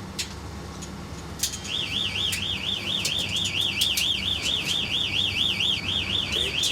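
Fishing boat's electronic warning alarm warbling rapidly up and down, about four to five swings a second. It starts a little under two seconds in, over a steady low hum, and signals a problem with the boat's fuel supply.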